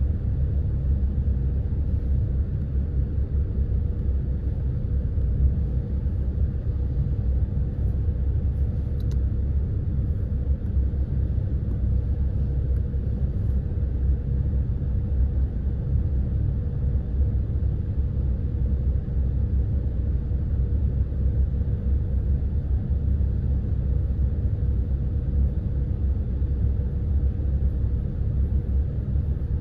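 Saturn car running, a steady low rumble with a faint steady whine above it.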